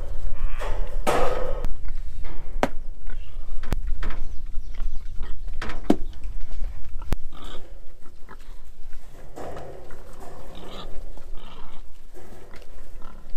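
Domestic pigs grunting in a pen while they are being moved around, with a few sharp clicks or knocks and a steady low rumble underneath.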